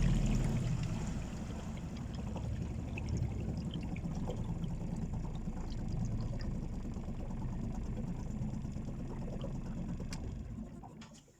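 Water rushing and splashing against a small boat's hull as the boat coasts along, fading away near the end.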